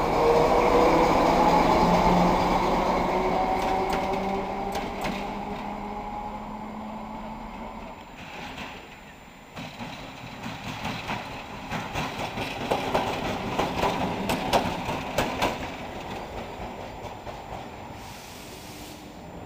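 ČKD-built class 750 'Okuliarnik' diesel locomotive pulling away, its engine note rising as it accelerates, loud at first and then fading as it draws off. From about the middle on there is a run of sharp clacks and knocks from its wheels crossing rail joints and points.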